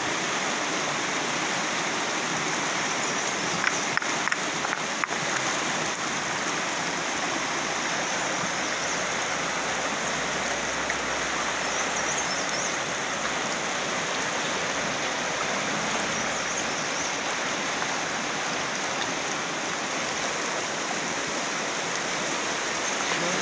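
Fast-flowing river rushing over rocks: a steady hiss of moving water.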